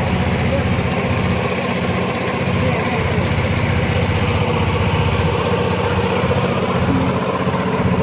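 A small tour boat's engine running steadily at an even speed as the boat cruises, with a constant low, rapid chugging beat.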